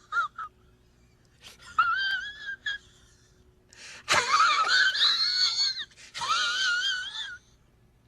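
High-pitched wheezing laugh in several wavering, squealing bursts, the longest in the middle, cutting off well before the end.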